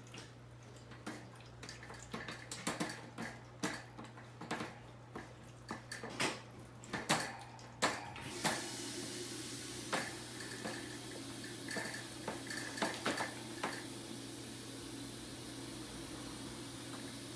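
Dishes and cutlery clinking at a sink, then a tap running steadily from about halfway through, with a few more clinks over the water.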